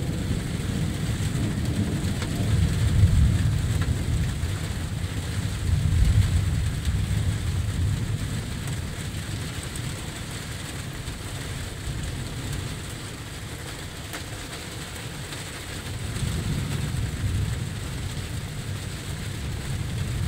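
Distant thunder rolling in a deep low rumble over steady light rain after a thunderstorm. The rumble swells during the first few seconds, dies down through the middle, and builds again near the end.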